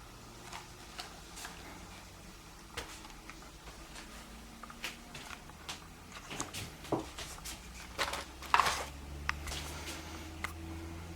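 Hands handling the contents of an unboxing: scattered light clicks, taps and short rustles, sparse at first and busier and louder in the second half, with the loudest clatter about eight and a half seconds in.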